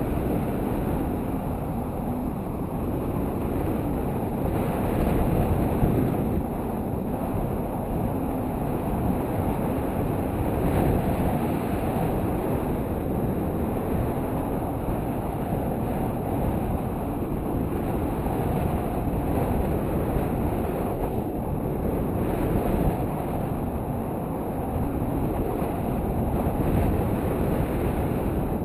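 Wind rushing over an action camera's microphone during a tandem paraglider flight: a steady buffeting roar of airflow that swells and eases slightly.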